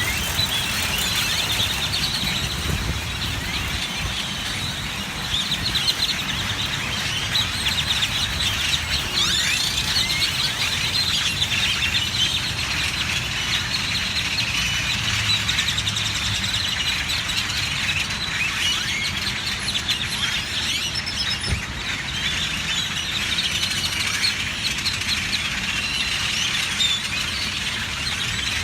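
A large flock of birds massed in trees, chirping and calling all at once in a dense, unbroken chatter. A low rumble runs underneath.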